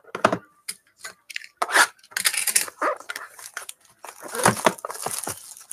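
Plastic shrink wrap crinkling and tearing as a sealed trading-card box is unwrapped by hand, with irregular crackles and light handling knocks.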